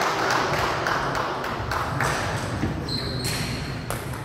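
Table tennis ball clicking in quick, even succession against table and bats, echoing in a large hall, with a brief high squeak about three seconds in.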